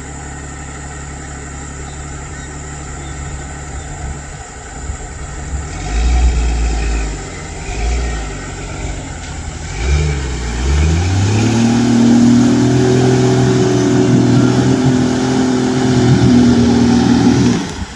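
Jeep Cherokee XJ engine idling steadily, then revving in surges from about four seconds in. About ten seconds in the pitch climbs to high revs, held for about six seconds before dropping off sharply near the end.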